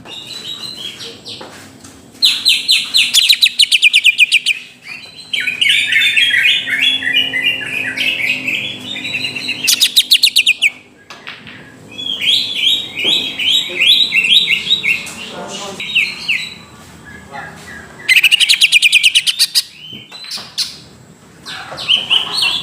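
Greater green leafbird (cucak ijo) singing at full voice: bursts of very rapid, chattering trills a few seconds long, separated by short pauses, one burst dipping lower in pitch and climbing back. It is the kind of loud gacor song played as a pancingan to provoke a captive leafbird into singing.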